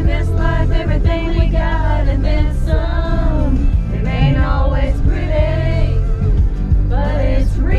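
Country song playing: a voice sings a melody over a full band.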